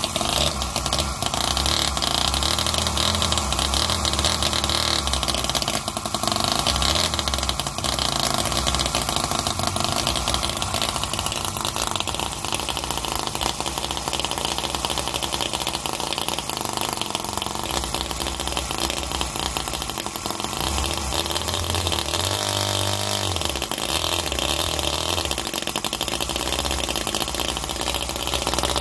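Miniature OKMO R30 Harley-Davidson Panhead V-twin petrol engine, warm, catching at once on a hand flick of the flywheel and running steadily. Its speed briefly wavers a little over twenty seconds in, then settles again.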